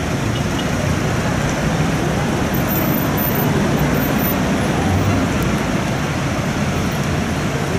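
Steady outdoor background noise with a low rumble, of the kind road traffic makes.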